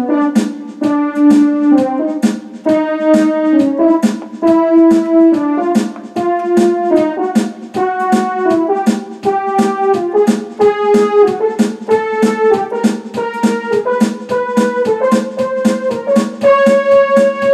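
Electronic arranger keyboard playing a blues piece over its built-in drum rhythm, with evenly spaced drum strikes under held notes that climb step by step in pitch. The tempo is being raised in stages on the keyboard's tempo control to mimic a steam train pulling out of the station.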